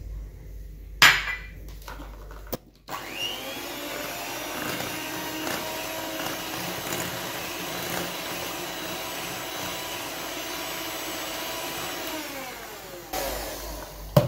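Electric hand mixer with twin wire beaters beating a thin cake batter in a glass bowl. The motor spins up about three seconds in, runs steadily, then winds down and stops near the end. A single knock comes about a second in, before the mixer starts.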